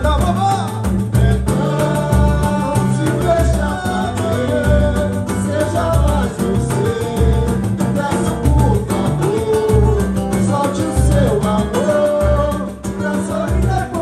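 Live samba (pagode) band playing: a regular low hand-drum beat, pandeiro, cavaquinho and strummed strings, with men's voices singing.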